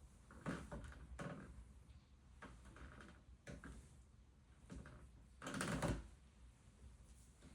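IKEA bunk bed creaking and knocking in a series of short, irregular sounds, the loudest and longest about three-quarters of the way through. It is the abnormal noise that a repair technician traced to the slatted bed base, and that remained after the slats were replaced.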